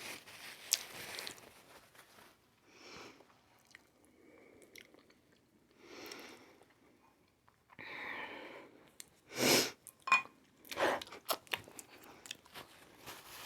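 Close-up mouth sounds of a person eating balut: quiet chewing with soft separate bursts, a louder sharp sound about nine and a half seconds in, then a run of small clicks near the end.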